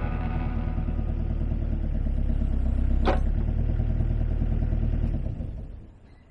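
Kubota excavator's diesel engine running under load as the boom and bucket are swung to try to shake the machine free of the mud. There is one sharp clank about three seconds in, and the engine sound dies away about five and a half seconds in.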